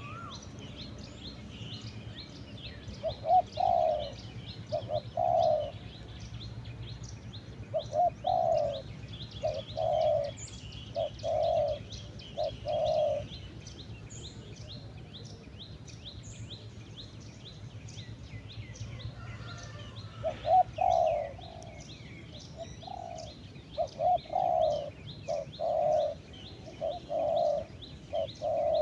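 Spotted doves cooing, low repeated coo phrases that come in two bouts, one in the first half and one in the second. Small birds keep up a twittering of high chirps throughout.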